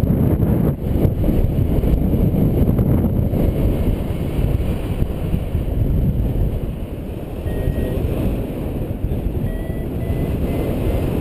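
Airflow from a paraglider in flight buffeting the harness-mounted camera's microphone: a steady, gusting low rush. Faint short beeps come and go near the end.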